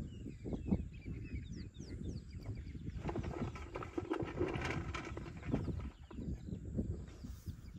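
Young elephant chewing and crunching sweet potatoes, apples and pellets, with irregular crunches throughout. Her trunk rummages in a metal bucket of food, and the sound is denser for a couple of seconds near the middle.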